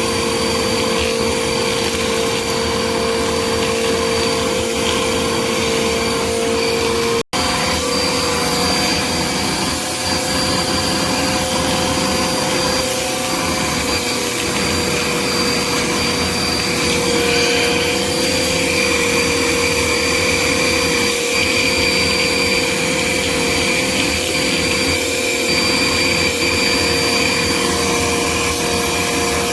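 Small Bissell vacuum cleaner running with its motor and brushroll on, a steady loud whine over a rushing airflow. The sound cuts out for an instant about seven seconds in, then carries on.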